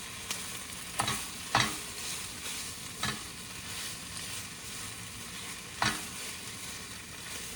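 A pan of food frying and sizzling steadily on the stove, left to simmer. A utensil knocks against the pan four times: twice close together about a second in, once about three seconds in, and once near the end.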